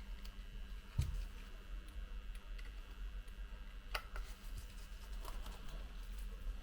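Small clicks and taps of a precision screwdriver working the pentalobe screws on an iPhone 7, with a soft knock about a second in and a sharper click about four seconds in, over a low steady hum.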